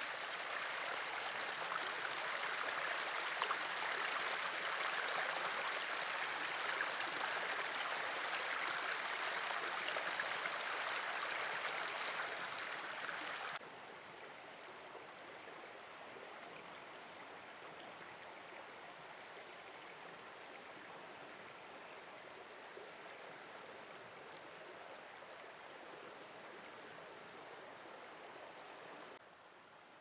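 Running water of a canyon stream flowing through its rock pools, a steady rush of water. It drops suddenly to a quieter level about halfway through, and again just before the end.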